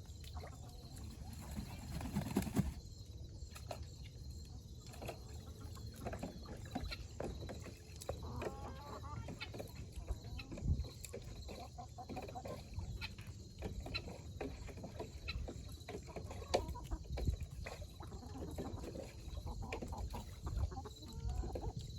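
Chickens clucking softly, with scattered short clicks and knocks throughout.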